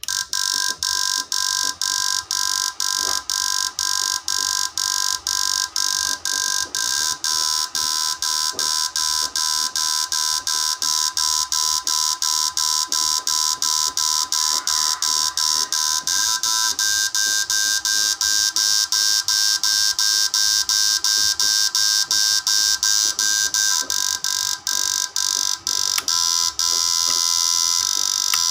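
Home-built MT110 10-MOSFET power inverter running under a load of incandescent bulbs, giving a loud, high buzzing whine. The whine is broken by brief regular dips about three times a second.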